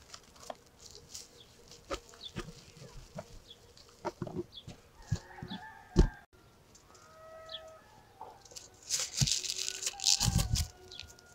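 Hens clucking in the background while plastic cling film crackles under hands, with a sharp knock about six seconds in. Near the end a roll of aluminium foil crinkles loudly as a sheet is pulled off.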